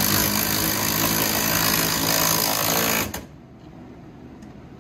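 Cordless hammer drill with a long extension and 13 mm socket running a nut down a bolt against its mechanical lock nut, stopping abruptly about three seconds in.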